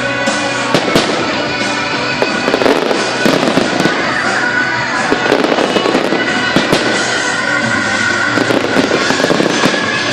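Aerial fireworks going off in a rapid, continuous string of sharp bangs and pops, with music playing along underneath.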